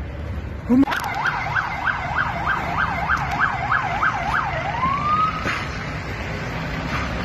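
Police car siren switched on with a quick rising whoop, then yelping rapidly up and down, about three times a second, for a few seconds. It ends in one slower rising wail that cuts off, over the noise of street traffic.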